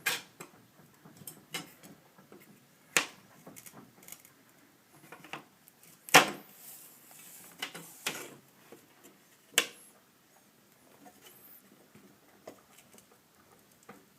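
Scattered sharp clicks and knocks as metal pry tools work a painted wooden glass stop loose from a door's window frame. The loudest knock is about six seconds in, and the last few seconds are quieter, with only small scrapes.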